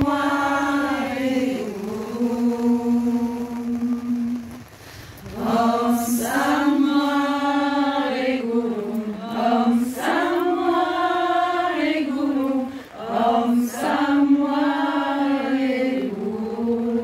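A group of women chanting a song together in unison in long, slow held notes. The singing breaks off briefly for a breath about four and a half seconds in and again near the thirteen-second mark.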